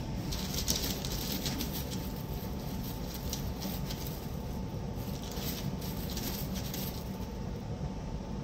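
Food cooking in a hot pan, crackling in bursts that come and go, over a steady low hum.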